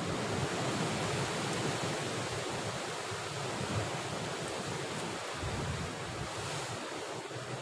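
Steady noise of sea surf and wind along a rocky shore, with wind rumbling unevenly on the microphone.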